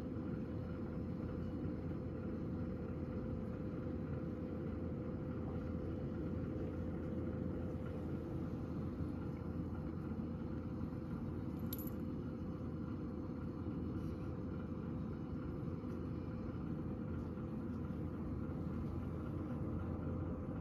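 Steady hum and whir of a room fan heater's fan running, with a single faint jingle of the cat's collar bell near the middle.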